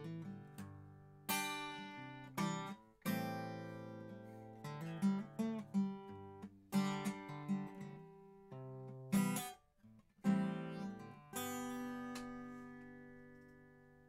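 Recorded guitar playing back unprocessed: plucked notes and chords, each ringing and dying away, with a last chord left to ring out near the end. This is the clean original track, its clipping removed and not yet mu-law companded.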